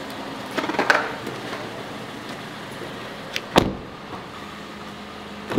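A few light knocks and handling noises as someone climbs into a car, then a car door shutting with one deep thud about three and a half seconds in, and another sharp knock near the end.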